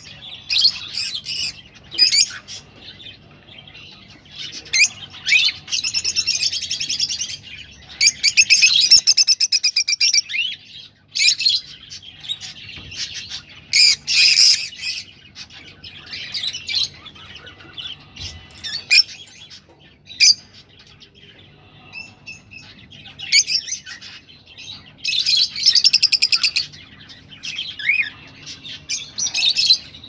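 Rosy-faced lovebirds chirping and chattering: sharp high-pitched chirps scattered throughout, broken by several dense bouts of rapid chatter lasting a second or two each.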